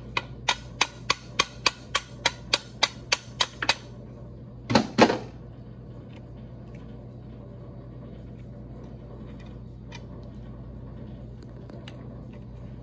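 A quick run of light hammer taps, about three or four a second, seating a crooked U-joint bearing cap in a Polaris RZR driveshaft yoke, followed by a louder double knock about five seconds in.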